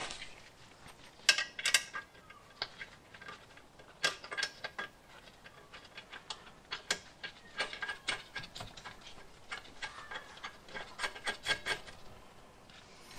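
Scattered clinks and knocks of metal parts as a Jaguar XJ front hub assembly with its brake disc is worked onto the lower suspension joint, coming in short clusters of small clicks.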